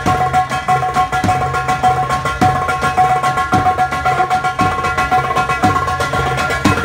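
Live dance music led by fast hand drumming, with quick drum strokes over held melodic notes and a pulsing bass line.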